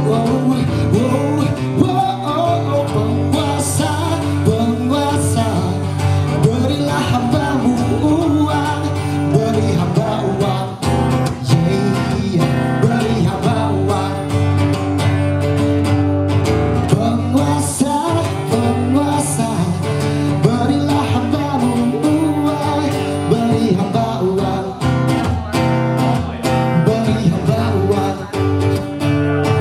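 Live acoustic band music played through a PA sound system: guitar with a voice singing over steady bass notes.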